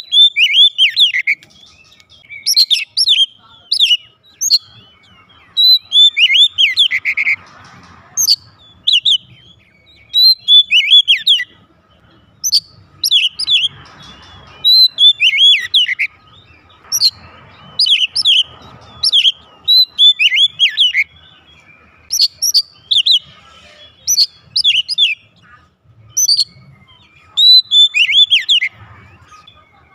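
Oriental magpie-robin (kacer) singing loudly in full song: short bursts of rich, quickly sweeping whistled phrases, one every second or two, with brief pauses between.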